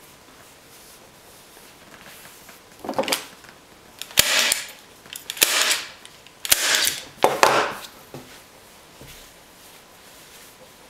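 Hand-squeezed staple gun firing staples through upholstery fabric into a wooden seat base: three sharp snaps about a second apart, each followed by a short rustle of fabric and handling.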